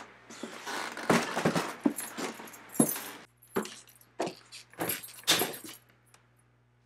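Light rattling and rustling of handled things and clothing, then about four footsteps on a hard floor, roughly two a second, before it goes quiet.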